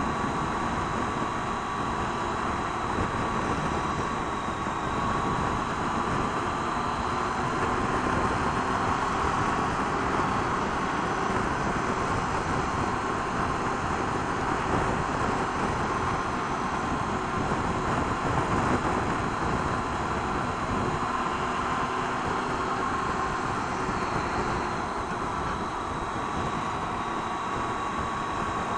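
Triumph Tiger 800 XRt motorcycle on the move: its three-cylinder engine running at a steady town-riding pace under a constant rush of wind on a helmet-mounted camera.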